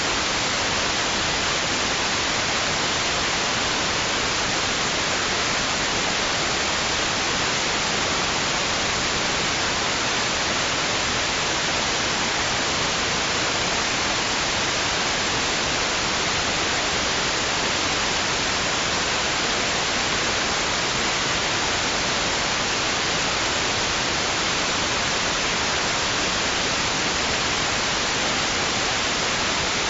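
Steady white noise: an even, unbroken hiss weighted toward the treble, at a constant level with no rise and fall of waves.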